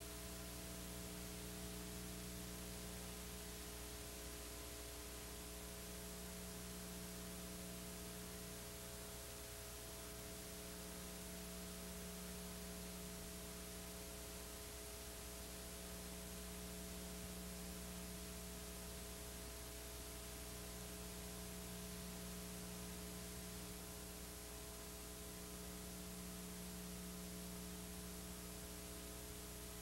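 Faint steady electrical hum with tape hiss from a VHS cassette's audio track playing over blank tape. It is a low buzz of several steady tones under an even hiss, with no music or voice.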